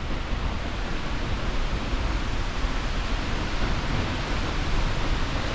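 Steady rushing roar of a large waterfall, an even unbroken wash of noise heavy in the low end.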